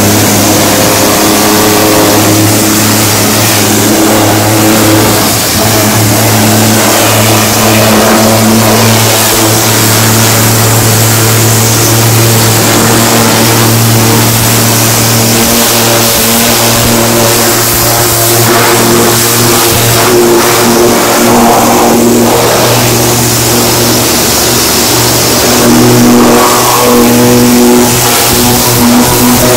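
Industrial high-pressure washer (7.5 HP, 250 bar) running with a steady hum, its jet hissing and spattering against a truck's wheel and chassis.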